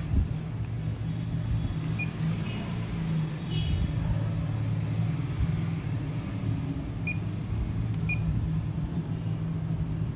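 Short electronic beeps from an LED dental curing light, one about two seconds in and two more a second apart later on, over a steady low hum of dental equipment.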